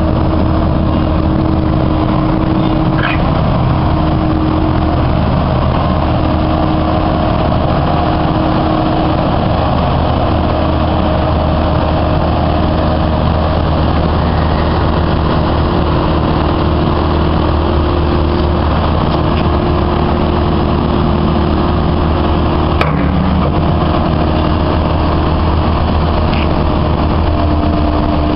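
Kobelco SK135SR hydraulic excavator's diesel engine running with a steady low drone while the swing, boom and arm are worked, a hum over it shifting in pitch as the controls are moved. A few short metallic clanks, the sharpest about 23 seconds in.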